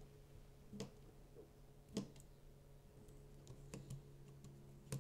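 Faint light clicks and taps of a small screwdriver and fingers on the open laptop's screws and parts, four or so spaced about a second apart, the sharpest about two seconds in, over a faint low steady hum.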